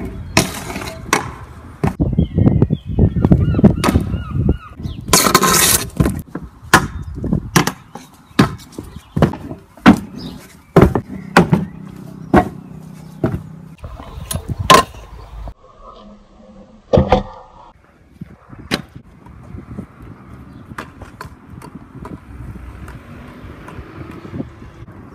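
Stunt scooters ridden on concrete: wheels rolling and scraping, broken by many sharp clacks and slaps as decks and wheels land, hit ledges and hop onto a wooden pallet.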